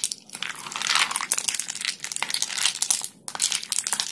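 A spoon stirring ghee and ice cubes in a glass bowl: a rapid, irregular scraping and clicking of ice and spoon against the glass, with a short break about three seconds in. The ghee is setting into butter as it is churned with the ice.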